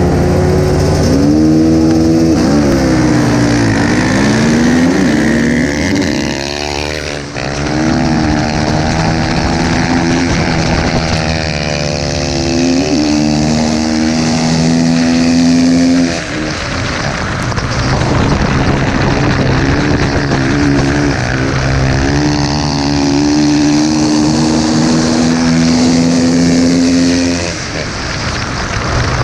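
Dirt bike engine heard from on the bike, revving hard and shifting up through the gears off the start, then easing off the throttle and opening it again three times as it laps the track. Another race bike runs close by.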